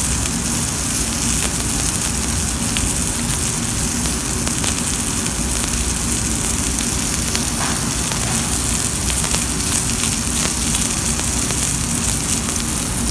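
New York strip steak frying in a hot nonstick skillet: oil and foaming butter sizzling steadily around the steak, thyme sprigs and garlic cloves, with occasional small pops.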